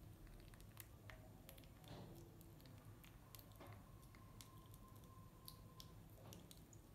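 Faint wet smacks and small clicks of a baby macaque biting and chewing a soft banana, over a low steady hum.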